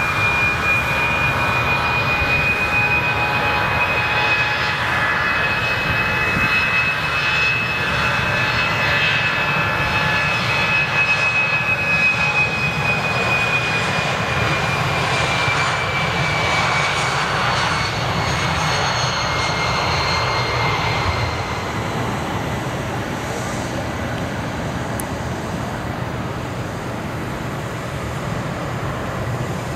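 Airbus A318's twin CFM56 turbofan engines at takeoff thrust as the jet rolls past and climbs away: a steady engine noise with a high whine that slides down in pitch after it passes, then fades to a duller rumble from about twenty seconds in.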